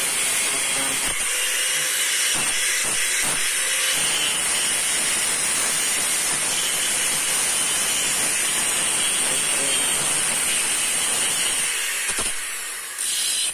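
A steady, loud hissing noise that drops away about twelve seconds in, followed by one short burst of hiss near the end.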